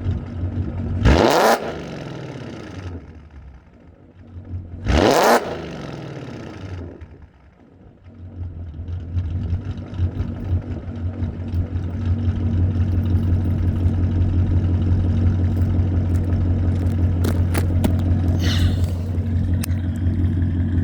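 Ford Mustang GT's 5.0 L V8, fitted with long-tube headers, an H-pipe and axle-back exhaust, blipped twice from idle, about a second in and again about five seconds in, each rev climbing sharply and dropping back. It then settles into a steady idle, with a few light clicks near the end.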